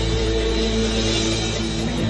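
Live band playing amplified electric guitar and bass guitar, the notes held steady with little drumming.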